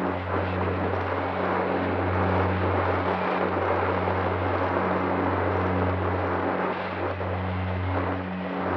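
Bixler 3 RC plane in flight, heard through its onboard camera: a steady rush of wind and propeller noise from its Turnigy Aerodrive SK3 1500kv brushless outrunner motor.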